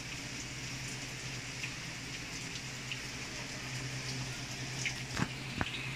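Water running into a Samsung automatic washing machine, a steady hiss with a low hum under it, showing that the machine now takes in water after its no-water-input fault was fixed. Two short knocks come about five seconds in.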